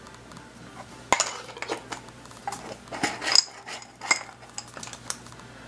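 Small steel lathe parts clinking and rattling in a glass jar: a string of sharp clinks beginning about a second in, loudest in the middle, dying away near the end.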